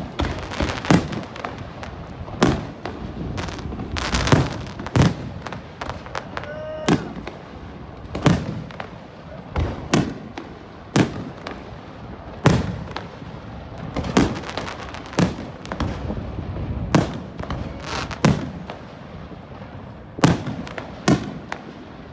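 Fireworks salute: a steady series of sharp bangs from aerial shells bursting, about one a second, with crackling between them.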